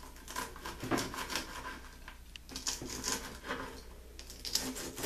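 Knife cutting crispy fried bacon on a cutting board: irregular small crunches and light taps of the blade against the board.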